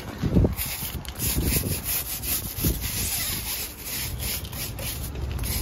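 Wheel brush scrubbing a car's alloy wheel in quick back-and-forth strokes, about three a second, starting about half a second in.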